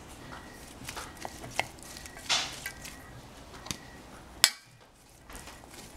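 Utensils clicking and scraping against a stainless steel mixing bowl while tossing a salad of capsicum and celery strips: scattered light clicks, with one sharp click about four and a half seconds in.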